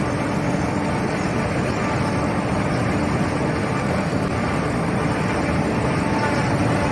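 A 4YZ-4T corn harvester running, a steady dense drone of engine and machinery with a faint steady hum over it and no breaks.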